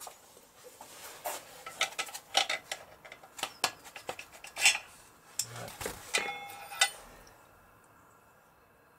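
Pliers clinking against the steel tachometer drive bushing and the aluminium Yamaha XS650 engine side cover as the bushing is worked out of its bore: a run of small metallic clicks and clinks with a brief ringing near the end, stopping about seven seconds in.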